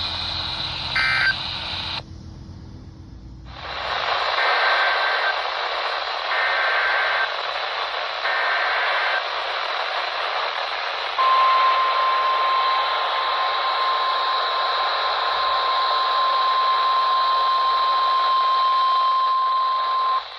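NOAA Weather Radio broadcast heavy with static, starting an Emergency Alert System warning. Three short SAME header data bursts about a second apart are followed by the steady 1050 Hz weather-radio alert tone, held for about nine seconds.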